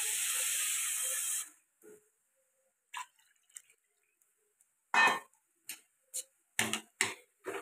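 A steady hiss for about the first second and a half, then water poured from a steel vessel into a kadai of curry: a run of short, irregular splashes and clinks, coming faster near the end.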